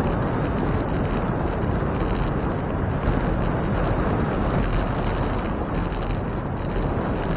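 Wind noise on the microphone of a camera on a moving bicycle: a steady low rushing sound with no clear tones.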